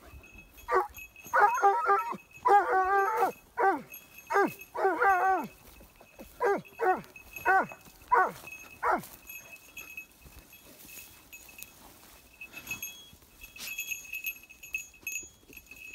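Pointing dog on a check cord giving a quick string of high, wavering yelping whines that drop in pitch at the end, about eleven cries over the first nine seconds, then stopping; the handler reads it as game nearby.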